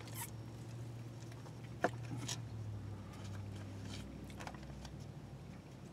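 Steady low hum in a car cabin, with a few faint short clicks and a sip through a drinking straw near the start.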